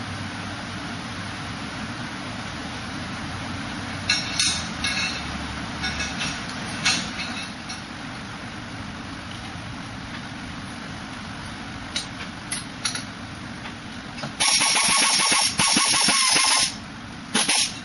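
Light metal clinks as an exhaust header is fitted to a scooter's cylinder head. Then, about two-thirds of the way in, a pneumatic wrench runs loud for about two seconds, followed by a few short bursts, driving in the header bolts.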